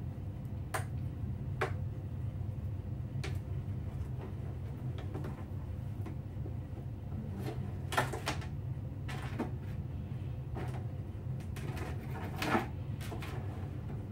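Scattered light clicks and knocks from hands handling a plastic RC helicopter fuselage and its light wiring, the two loudest about eight and twelve and a half seconds in, over a steady low hum.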